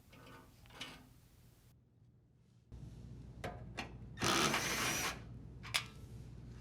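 Cordless drill driver run in a burst of about a second to back out a toe kick screw on a dishwasher, with a few sharp clicks of the bit and panel being handled.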